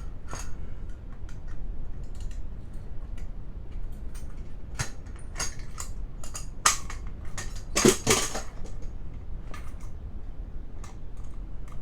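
Irregular clicks and light knocks of small hard objects being handled and set down, with a louder clatter about two-thirds of the way through.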